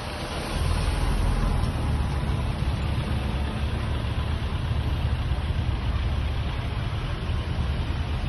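Steady low rumble of an idling vehicle engine, a little louder from about half a second in.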